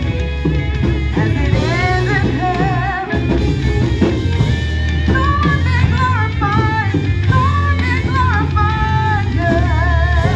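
Gospel worship music during a church service: a singer with a wavering, vibrato voice over a band with heavy bass and drums.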